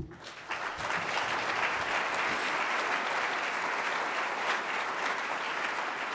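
Audience applauding: a single sharp knock right at the start, then steady clapping that swells within about half a second and holds.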